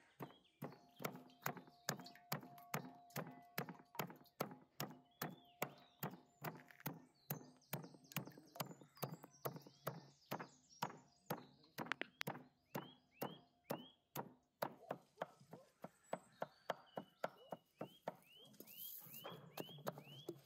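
Cleaver chopping raw beef on a wooden log-slice chopping board, a steady run of knocks about two a second as the meat is minced by hand. The strikes grow fainter near the end.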